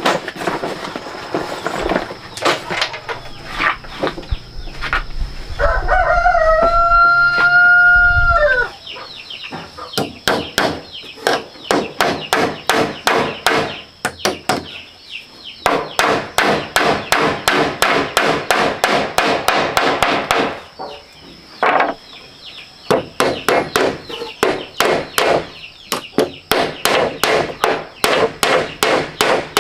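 A rooster crows once, about six seconds in, a call of nearly three seconds. After that comes steady hammering on wood, a few blows a second in long runs broken by short pauses.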